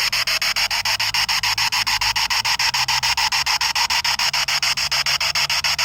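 Spirit box radio sweeping through stations: a steady hiss of static chopped into rapid, even pulses, many a second.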